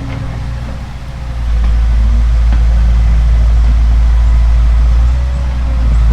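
Low, steady engine rumble like a heavy diesel idling, growing louder about a second and a half in and then holding.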